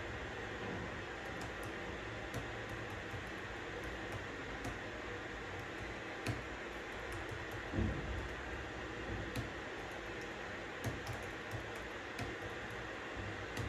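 Steady white-noise hiss with scattered, irregular computer keyboard key clicks as someone types, and a soft low thump about eight seconds in.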